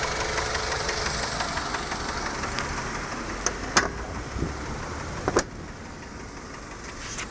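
Mazda 6 1.8 four-cylinder petrol engine running with a rapid ticking knock, the engine knock under investigation; the ticking fades over the first few seconds. A few sharp clicks follow around the middle, and then the level drops.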